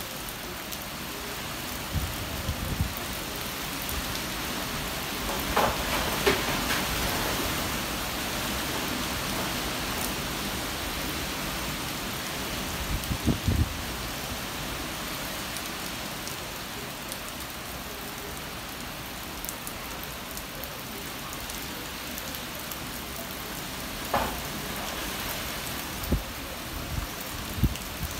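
Steady rain falling on trees and foliage, an even hiss throughout, with a few dull low bumps scattered through it.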